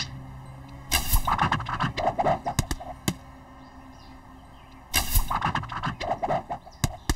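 Cartoon sound effects of arrows being shot into wooden targets, in two rapid volleys about a second in and about five seconds in. Each volley is a rush followed by a string of sharp impacts.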